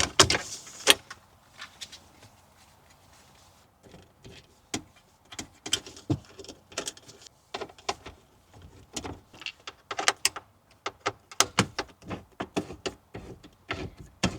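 Plastic dashboard trim on a BMW M3 being pulled free and handled: irregular clicks, snaps and knocks of trim clips and panels, quieter for a couple of seconds early on, then a busy run of clicks.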